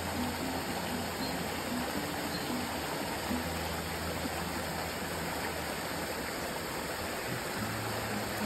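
Steady rushing of water, like a stream or waterfall, over soft background music with low held notes.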